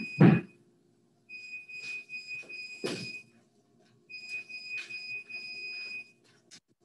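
A high-pitched electronic beeping, a steady tone pulsing rapidly, sounding in two stretches of about two seconds each with a pause between. A single dull thud comes a little before the three-second mark.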